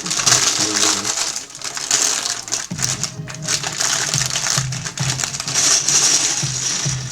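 Thin plastic Lego parts bags crinkling loudly as they are handled, torn open and emptied, with steady background music underneath.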